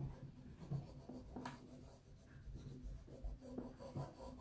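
Fingertips rubbing a rub-on décor transfer through its plastic backing sheet onto a bare wooden drawer side, pressing the design down so it sticks: a faint scratchy rubbing, with one light click about a second and a half in.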